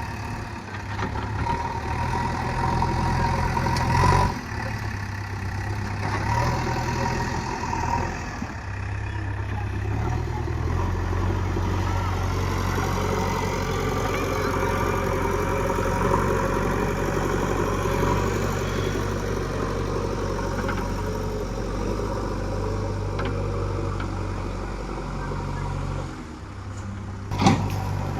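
JCB digger's diesel engine running steadily while digging soil, its note shifting as the load changes. A sharp knock about four seconds in and another near the end.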